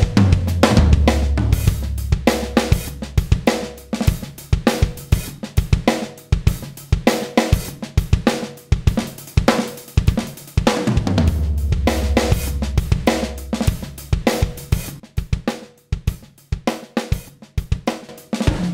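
Drum kit playing a steady groove of kick, snare, hi-hat and cymbals, played back through a Black Lion Audio Bluey 500, a 1176 Blue Stripe-style compressor. Deep sustained bass notes come in at the start and again about ten seconds in.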